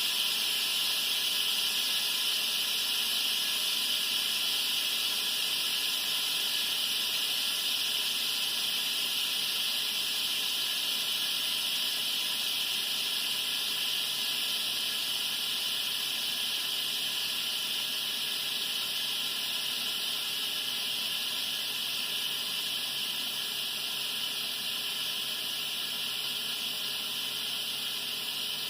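Instant Pot electric pressure cooker venting steam through its release valve, a steady high hiss that fades slightly as the pressure drops after cooking.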